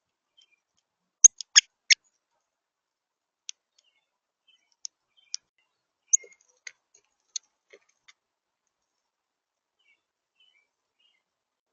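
Sharp, irregular clicks and taps of a bird's beak pecking at seeds on a feeder: a quick cluster of three loud taps, then a scatter of fainter pecks.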